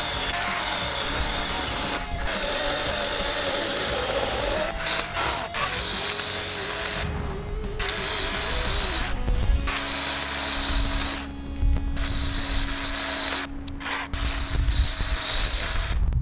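Compact 12-inch DeWALT 20 V cordless chainsaw cutting dead pecan limbs. Its electric motor whine drops in pitch as the chain bites into the hardwood, with several short breaks between cuts.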